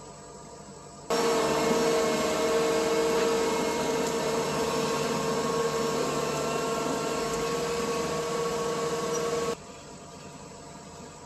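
Skid steer loader's engine and hydraulics running at a steady speed, a constant mechanical whine that cuts in suddenly about a second in and stops just as suddenly near the end.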